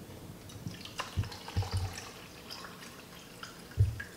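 Water poured from a glass container into a water flosser's reservoir, trickling and dripping. There are a few soft knocks, and a louder thump near the end as the vessels are handled.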